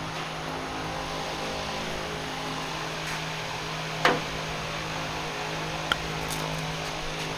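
Steady mechanical hum with a constant low tone, like a fan running, broken by a sharp click about four seconds in and a smaller click near six seconds, typical of handling wires and tools during harness work.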